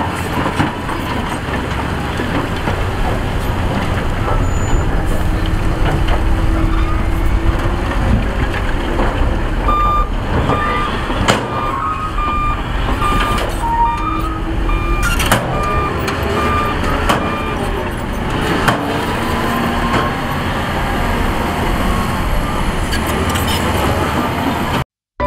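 Heavy diesel earthmoving machinery running steadily, with a reversal alarm beeping about twice a second for some seven seconds in the middle and a few sharp knocks. The sound cuts off suddenly near the end.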